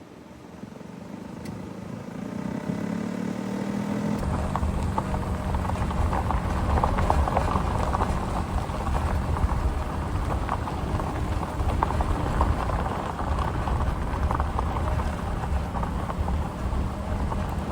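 Car driving: the engine note rises as it picks up speed over the first few seconds, then a steady rumble of engine and tyre noise on the road.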